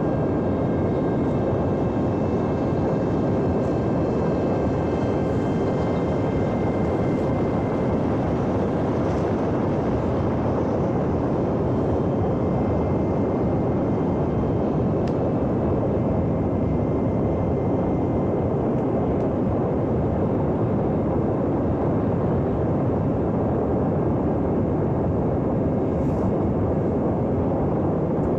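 Small electric RC airplane in flight: a steady rush of propeller and air noise with a faint, steady high whine from its motor.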